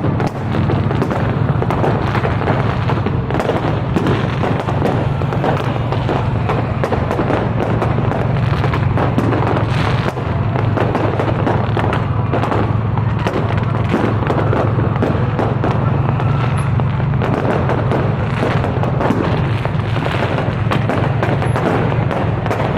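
Fireworks going off without a break, a dense stream of cracks and bangs, over a steady low hum.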